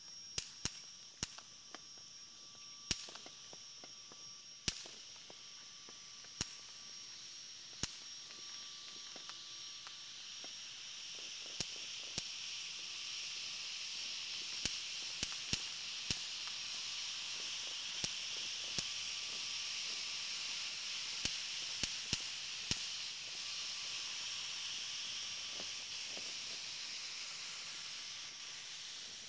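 Distant fireworks popping: sharp single cracks at irregular intervals, a couple of dozen of them, over a steady high-pitched hiss that swells in the middle.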